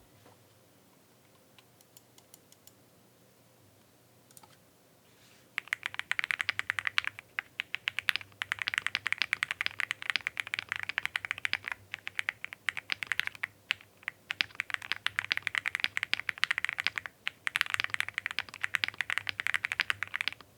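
Typing sound test on an IQUNIX Super 1+1 TKL mechanical keyboard with an FR4 plate, PE and case foam, and double-shot PBT keycaps, giving a foamed-out, marbly sound. A few faint key clicks come first, then fast continuous typing starts about five and a half seconds in, with a couple of brief pauses.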